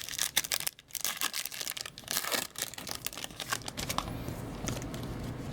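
Crinkling of a foil trading-card pack wrapper and hockey cards being handled: a busy run of short rustles and small clicks, with a brief pause about a second in.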